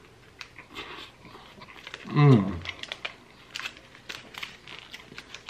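Eating a burger held in a paper wrapper: biting and chewing, with many small crackles and clicks from the wrapper and mouth. About two seconds in there is one short, low voiced sound whose pitch dips and comes back up, the loudest thing here.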